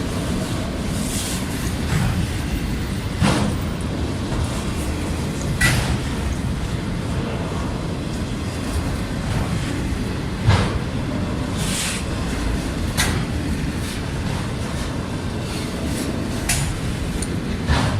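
Freight train of bi-level autorack cars rolling past: a steady rumble of steel wheels on rail, with sharp clanks and clicks every second or two.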